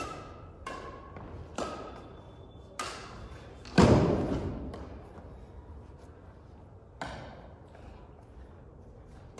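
Badminton rackets striking a shuttlecock in a rally, a sharp hit about every second, echoing in a large hall. A loud heavy thump comes a little under four seconds in, then a last hit some three seconds later.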